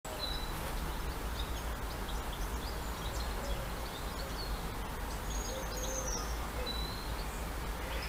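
Outdoor garden ambience: several small birds chirping and calling in short, scattered notes over a steady low background rumble.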